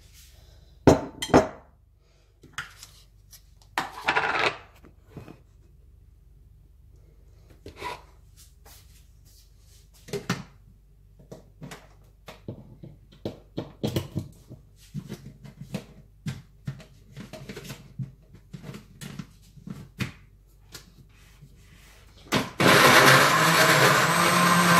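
Scattered knocks and clicks of kitchen handling, then about 22 seconds in an electric blender switches on and runs steadily at full speed, blending chopped apple and kiwi with milk.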